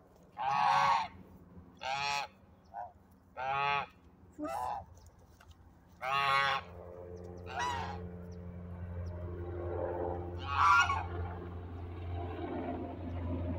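Domestic white geese honking in short single calls, about eight of them, bunched in the first half with one more near the end. A steady low rumble builds underneath in the second half.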